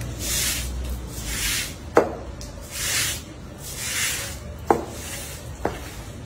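Broom scrubbing a wet floor: four swishing strokes about a second apart, with three sharp knocks in between.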